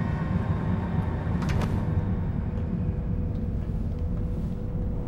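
Deep, steady mechanical rumble of a sci-fi starship hangar, like heavy engines and machinery running. A short metallic clank comes about a second and a half in, and a faint steady hum joins it about halfway through.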